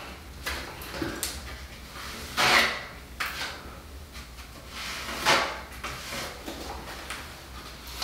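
A 6-inch taping knife scraping along fabric reinforcing tape bedded in wet Laticrete Hydro Ban liquid waterproofing membrane, squeezing the membrane out in several separate strokes. The loudest come about two and a half and five seconds in, over a low steady hum.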